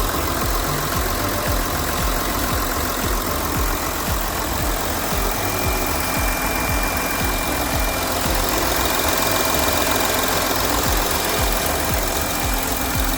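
Audi Q7 3.0 TDI V6 diesel engine idling steadily, running with engine flush mixed into the old oil before it is drained.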